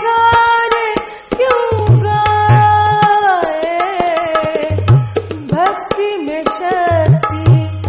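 A woman singing long held notes that slide and bend in a Hindustani classical style, to tabla accompaniment with deep resonant bass-drum strokes and sharp taps.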